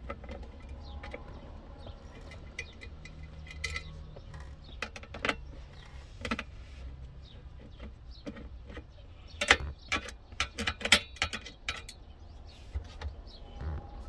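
Screwdriver working on the screws of a center-console cool box bracket: scattered metal clicks, clinks and scrapes, with a busier run of sharp clicks about ten seconds in.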